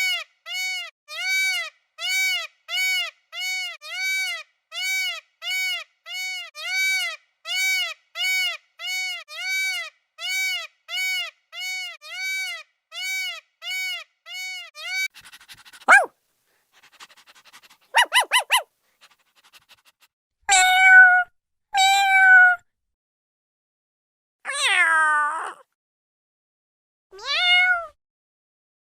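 A cat meowing. First comes a fast, even run of short meows, about one and a half a second, for some fifteen seconds. After a brief trill, several longer separate meows follow, some with a falling pitch.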